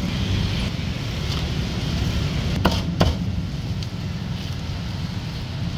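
Cleaver knocks on a cutting board: two sharp strikes about a third of a second apart near the middle, and another at the end, over a steady low rumble of street noise.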